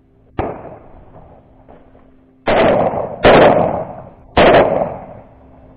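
Three loud shots from a 12-gauge shotgun fired in quick succession, the second under a second after the first and the third about a second after that, each ringing out after the blast. A fainter single bang comes about half a second in, before them.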